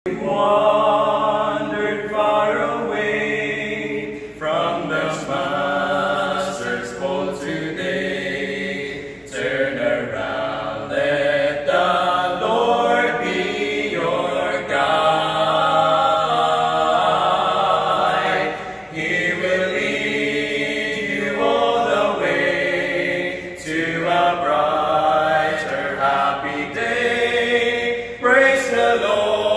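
Male vocal quartet singing a cappella in harmony, in sustained phrases with short breaks between them.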